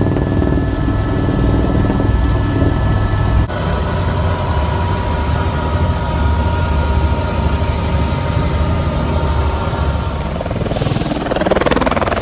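Helicopter noise from inside the cabin in flight: a steady, loud low drone of the rotor and engine with a thin, steady whine over it. Near the end it changes to a helicopter running on the ground, heard from outside nearby.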